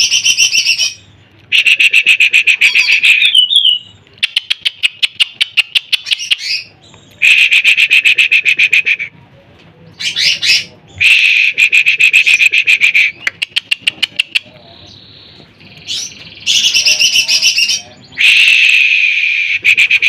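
Caged cucak ijo (greater green leafbird) singing loudly in repeated bursts of rapid, chattering trills, each one to three seconds long, with short pauses between.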